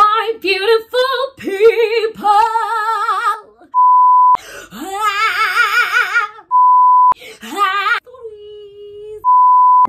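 A woman singing short ad-lib runs with a heavy warbling vibrato, cut three times by the steady beep of a colour-bar test tone, each about half a second long, the last near the end. Just before the final beep a single held note hangs on for about a second.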